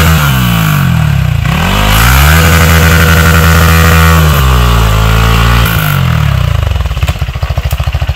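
Off-road motorcycle engine revving hard while the rear wheel slips for traction, the revs rising and falling several times and holding high in the middle. In the last second or so it drops to a slow, pulsing low-rev chug.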